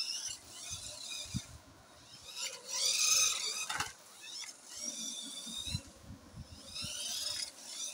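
A toy RC off-road truck's small electric drive motor and gears whining in four short bursts, the pitch rising and falling as it is driven back and forth and spun. There is one sharp knock about four seconds in.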